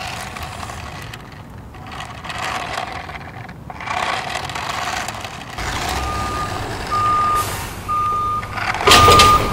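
Reversing alarm beeping four times, about one beep a second, over a low engine rumble, starting about six seconds in; a loud clatter comes with the last beep.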